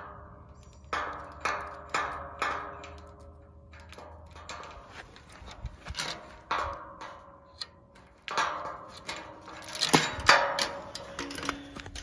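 Chain and combination padlock clinking against a metal tube gate as they are handled: a run of sharp metallic clicks, each with a brief ring, loudest near the end.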